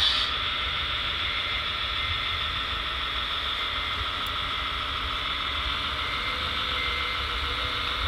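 Radio-controlled MAN three-axle tipper truck model crawling up a loose sand slope, its electric drive and gearbox giving a steady whine over a low rumble.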